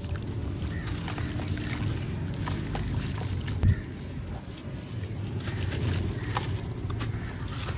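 Wet sand-cement chunks crumbled by hand in a tub of water: gritty crunching and crackling with water sloshing. One heavy thud about three and a half seconds in.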